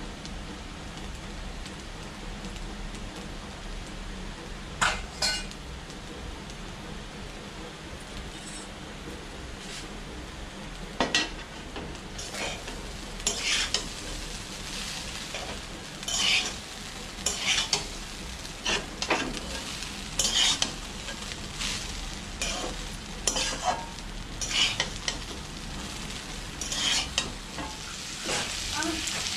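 Rice frying in a steel wok-style pan, sizzling steadily. A metal spatula scrapes and stirs against the pan in short, irregular strokes.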